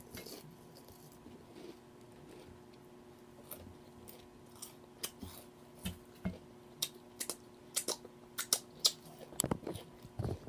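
A woman chewing food close to the microphone: sharp, irregular wet mouth clicks and lip smacks, sparse at first and coming thick and fast from about three and a half seconds in.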